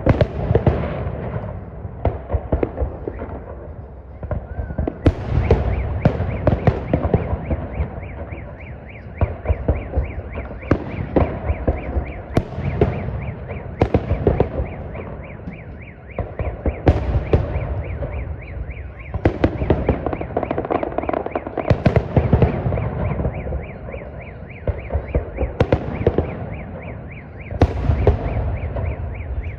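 Fireworks salute: shells bursting in a rapid series of sharp bangs with crackling, coming in waves every few seconds.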